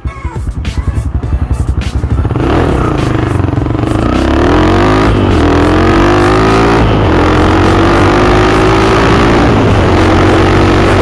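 Rusi Classic 250 motorcycle engine under way, starting with a pulsing beat at low revs. It then accelerates with a rising pitch, which dips and climbs again about three times as it shifts up through the gears.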